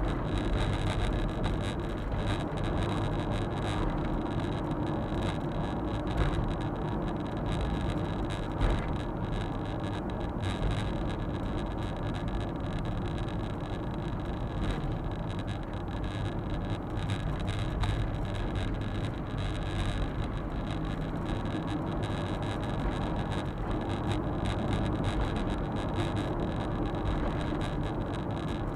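Suzuki Super Carry kei truck driving, heard from inside the cab: its 660 cc three-cylinder engine runs steadily under tyre and road noise. There is a brief thump about nine seconds in.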